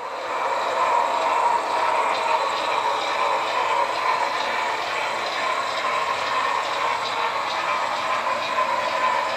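HO-scale model train running on the layout track: a steady mechanical running noise of wheels and motor.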